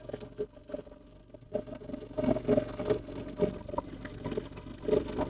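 Small boat moving on water: a low steady rumble with faint, irregular knocks.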